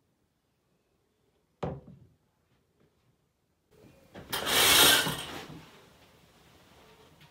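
One sharp thud about a second and a half in, then a shower curtain yanked open, its rings scraping along the metal rod, a little over four seconds in; the curtain pull is the loudest sound.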